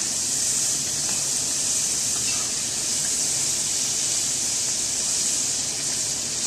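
Potato fries deep-frying in hot oil in a cast-iron skillet: a steady, high sizzle.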